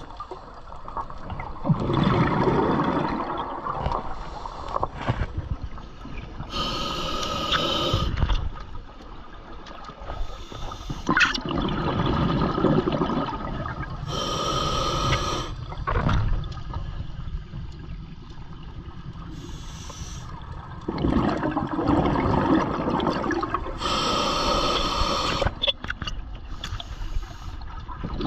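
A scuba diver's regulator breathing underwater: about three slow breaths, each a hissing inhale and a gurgling rush of exhaled bubbles.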